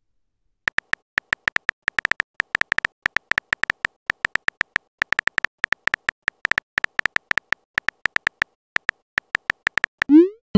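Simulated phone-keyboard typing clicks from a texting-story app: short, high ticks at an uneven pace of several a second. Near the end comes a short rising swoop, the message-send sound effect.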